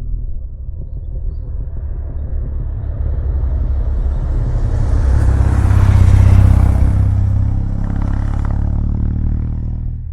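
Kawasaki W800's air-cooled parallel-twin running through its stock mufflers, a deep exhaust note that swells to its loudest about six seconds in and then eases off.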